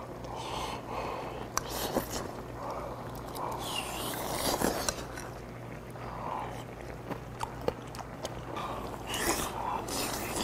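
A man biting and chewing food close to the microphone, in soft irregular mouthfuls with a few light clicks.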